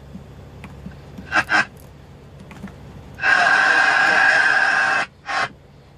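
CB radio receiving over its speaker: low background hiss with a short burst about a second and a half in, then about two seconds of loud, even-level radio noise as a transmission comes through. It cuts off suddenly and is followed by one short blip.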